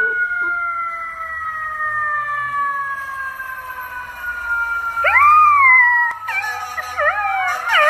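A siren sounds in one long, steady tone that slowly falls in pitch. About five seconds in, a golden retriever puppy starts howling along with it, first one rising-and-falling howl, then quick wavering howls over the siren.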